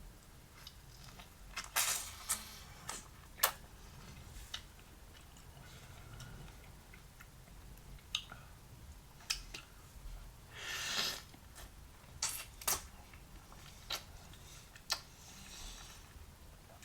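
Close-up mouth sounds of someone eating a juicy peach: scattered wet clicks and smacks, with one longer wet sound about eleven seconds in.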